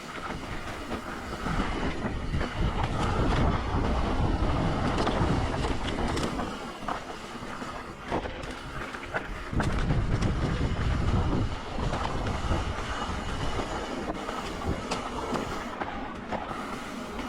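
Mountain bike riding fast down a dirt trail: wind rumbling on the microphone, with tyre noise and the bike's frame and chain rattling and clicking over bumps. The wind rumble swells twice, about two seconds in and again about ten seconds in.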